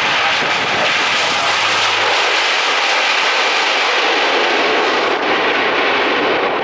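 Lockheed C-130 Hercules four-engine turboprop running loudly as it rolls along the runway, a steady heavy engine and propeller noise.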